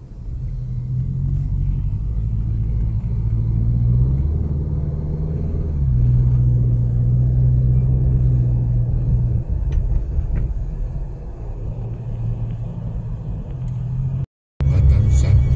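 Car engine and road noise heard from inside the cabin while driving, a low hum whose pitch and loudness rise and fall with speed.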